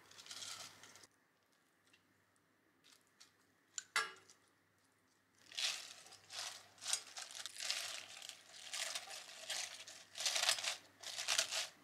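Spring cabbage leaves dropped into a stainless steel pot and pressed down with wooden chopsticks: a run of crisp crunching and rustling. There is one sharp click about four seconds in.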